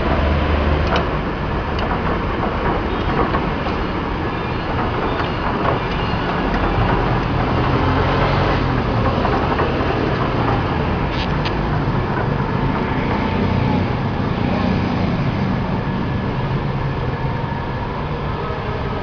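Mazak lathe running, a steady loud machine noise with faint whining tones and a few sharp clicks.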